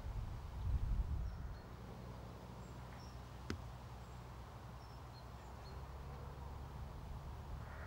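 Open-air ambience on a golf course: a low, uneven rumble of wind on the microphone, louder in the first second and a half, with faint bird chirps. A single sharp click sounds about three and a half seconds in.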